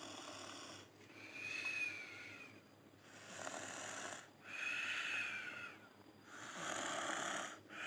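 A small child snoring in sleep: slow, regular breaths, each cycle a raspy breath followed by one with a high, whistling note.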